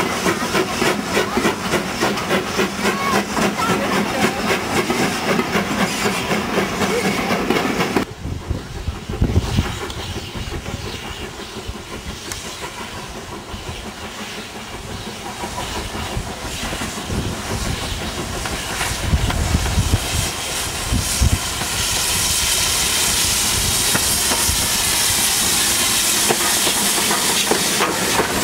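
Steam train running with a fast, regular beat that cuts off abruptly about eight seconds in, giving way to a quieter low rumble. A steady hiss of steam builds up over the last several seconds.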